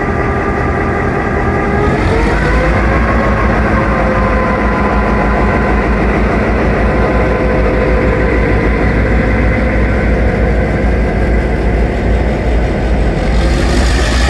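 Victorian Railways T-class diesel-electric locomotives pulling away close by, their EMD two-stroke diesel engines running loud and steady. About two seconds in the engine note rises as they take more power to depart.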